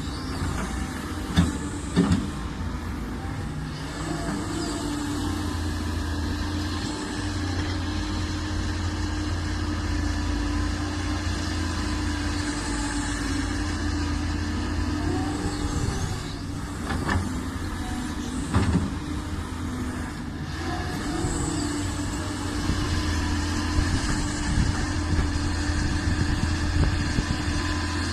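Doosan hydraulic excavator's diesel engine running steadily under load, with a handful of short knocks: two a couple of seconds in, two more past the middle, and several smaller ones near the end.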